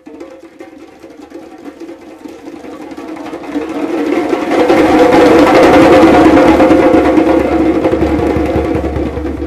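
A group of djembes played together in a fast roll that starts soft, swells to full loudness about two-thirds of the way through, and eases off slightly near the end.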